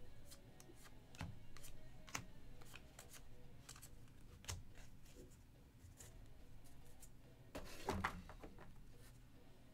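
Football trading cards being handled and flipped through by hand: faint scattered clicks and slides of card stock, with a louder rustle and knock about eight seconds in.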